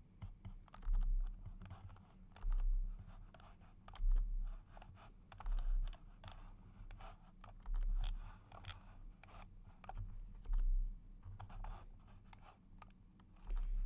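Computer mouse clicks and keyboard key presses, as line segments are selected and deleted one after another. Dull low thumps come every second or two and are louder than the clicks.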